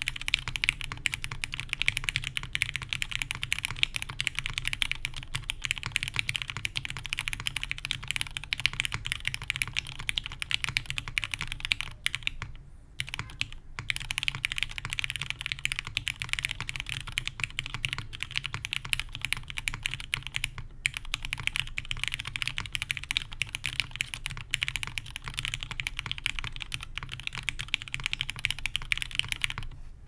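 Fast, continuous typing on a Sessantacinque 65% custom mechanical keyboard with lubed Cherry MX Black linear switches in a polycarbonate plate and CRP R4 keycaps. There is a pause of about a second a little before the middle and a very short break about two-thirds of the way through.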